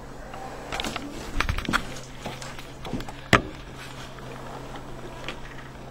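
A few sharp clicks and knocks, the loudest about three seconds in, over a steady low hum.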